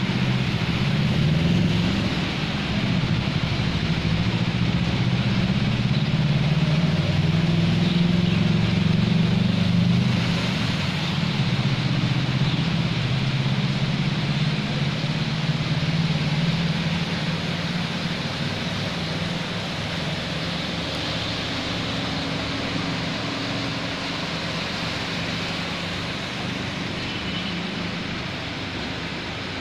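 A motor vehicle's engine running as it moves along the flooded road, loudest in the first half and then fading away, over a steady hiss.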